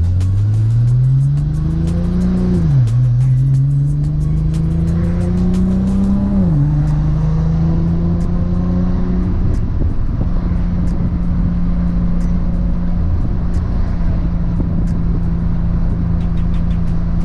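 Nissan GT-R R35's twin-turbo VR38 V6, built to a 4.1-litre stroker and breathing through a 4-inch stainless exhaust, pulling hard through a gear. The engine pitch climbs, falls sharply on an upshift about three seconds in, climbs again and falls on a second upshift, then settles to a steady cruise.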